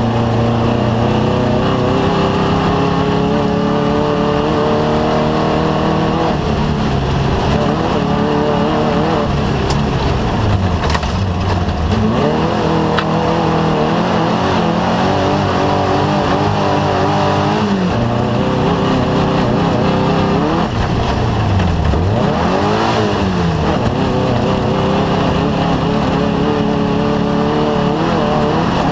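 Off-road race vehicle's engine running hard, its pitch repeatedly climbing and dropping as it revs up, shifts and lifts off, over a steady rushing noise.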